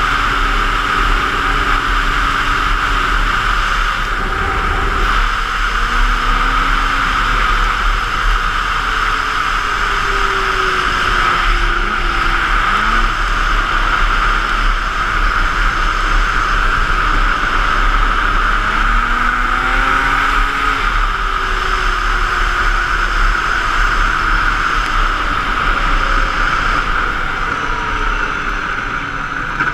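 Snowmobile running at speed, its engine and track noise under heavy wind rush on the microphone. The engine note rises and falls a few times.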